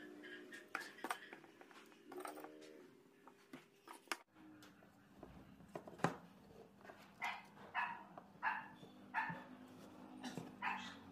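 Light wooden knocks as slats are set down and fitted together on a wooden workbench, then a dog barking repeatedly, about one to two barks a second, through the second half.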